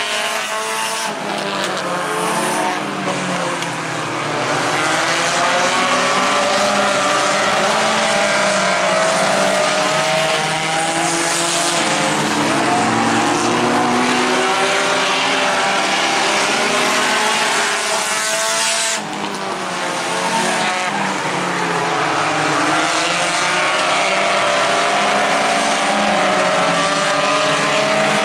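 A pack of compact-class dirt-track race cars racing at speed, several engines revving at once with overlapping pitches that rise and fall as the cars accelerate and lift through the turns.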